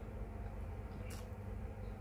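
A person eating, with one short wet mouth sound about a second in, over a steady low hum.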